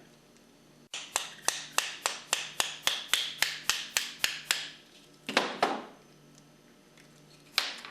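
A hammer tapping a punch to drive the pin out of a Hypro pump's piston assembly: a quick run of about a dozen sharp metal taps, roughly four a second, then a louder knock about two seconds later and another single tap near the end.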